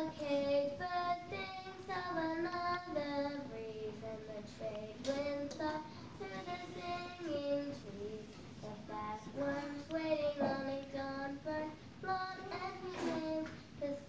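A young girl singing a slow, unaccompanied melody with long held notes.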